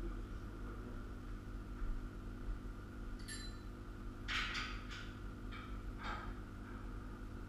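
Light metallic clinks and knocks as steel parts of a chainsaw-mill rail frame are handled and fitted: one ringing clink about three seconds in, then a cluster of short knocks, over a steady low hum.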